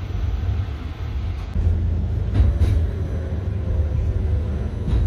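Steady low rumble of a city tram running, heard from inside the car. About a second and a half in it gives way to city street traffic noise, with two sharp clicks shortly after.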